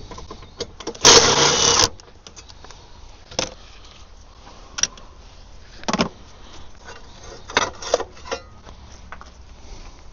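A power tool runs in one burst of about a second, spinning out a bolt, followed by scattered metal clinks and knocks of tools and bolts being handled.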